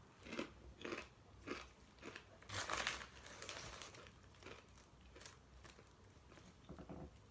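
A person biting and chewing tortilla chips: a series of crisp crunches, the loudest and longest about two and a half seconds in, then quieter chewing crunches.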